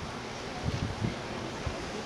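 Wind buffeting the microphone: a few low thumps about halfway through, over a steady outdoor background hiss.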